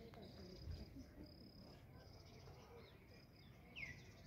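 Faint, high-pitched insect trilling in short repeated bursts, with one falling bird call near the end.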